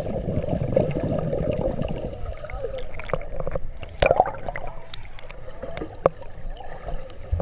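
Pool water heard underwater: muffled rushing, splashing and bubbling from swimmers kicking, with scattered sharp clicks and a louder splash about four seconds in.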